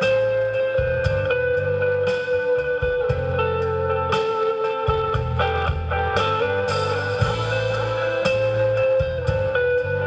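Live blues-rock band playing an instrumental break: electric guitar over bass and drums, with one high lead note held for long stretches.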